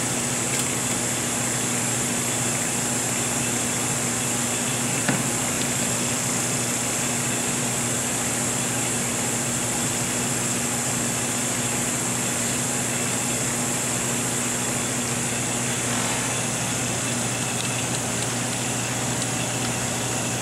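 Steady low hum with a hiss above it from the reflow oven system's running machinery, unchanging throughout, with one light click about five seconds in.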